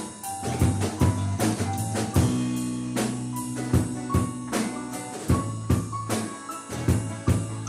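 Instrumental passage of a song with no vocals: a drum kit playing a steady beat over a bass line, with short melodic notes from another instrument.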